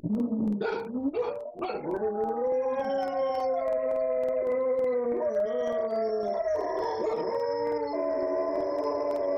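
Two dogs barking a few times, then howling together in long, overlapping, wavering howls that go on without a break.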